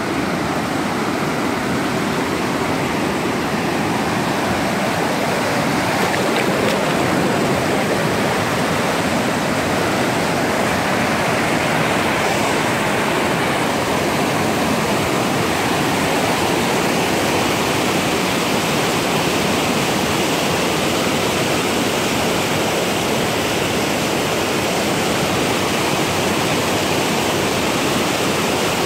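Shallow river water rushing and splashing over rocks in white-water rapids, a steady, even rush.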